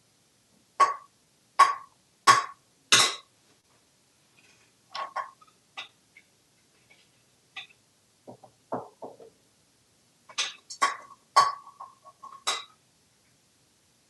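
An African grey parrot knocking and dropping a bird-nest sorting toy's nest and pieces on a marble ledge: a series of sharp knocks, each with a short ringing tone. Four come about a second apart near the start, then scattered ones, and a quick cluster of knocks near the end.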